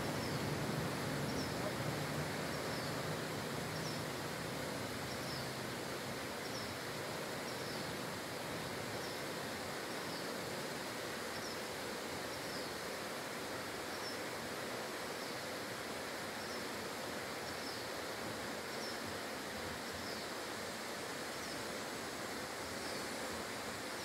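Steady rushing of a waterfall. A faint, short high chirp repeats about every three-quarters of a second.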